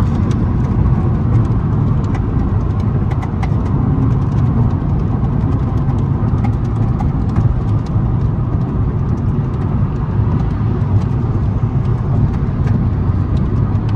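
Steady road and engine noise inside a car cruising on the highway: an even, low rumble with no change in pace.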